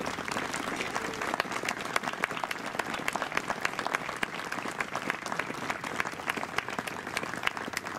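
A crowd applauding, many hands clapping steadily throughout.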